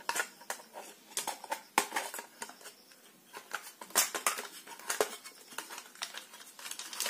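Handling noise: light clicks, taps and rustling as wires are pushed through a hole in a switch board and the board is lifted off its wooden box, with sharper knocks about two, four and five seconds in.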